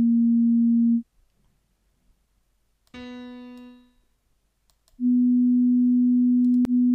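Computer-generated pure sine tone at A-sharp 3 (233 Hz) that stops about a second in. About two seconds later a short piano-like B3 note with overtones sounds and fades over about a second, then a steady pure sine tone at B3 (247 Hz) starts near five seconds in, with a brief click just before the end.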